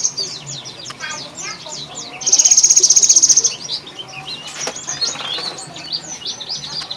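Caged cinereous tit (gelatik batu) giving its odd 'trrrrr' call: a loud, very rapid high rattle lasting about a second, starting a little over two seconds in. Short high chirps and twitters run around it.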